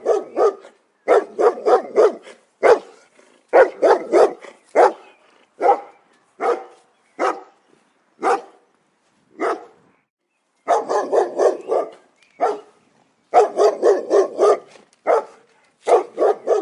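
A dog barking repeatedly in quick volleys of two to five barks, with a pause of about a second and a half near the middle before a faster run of barks.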